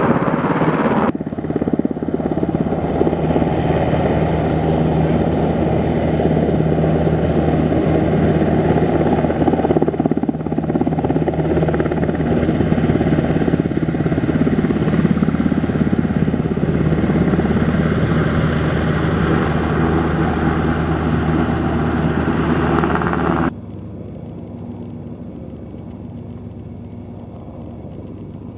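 Black Hawk helicopter's twin turboshaft engines and rotors running on the ground: a loud, steady noise with steady low tones. The sound changes abruptly about a second in, and near the end it drops to a much quieter steady running sound.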